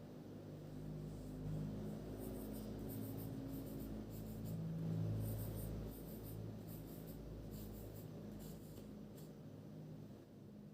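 Pen writing on paper: clusters of short scratchy strokes that start about two seconds in and stop shortly before the end, over a low steady hum.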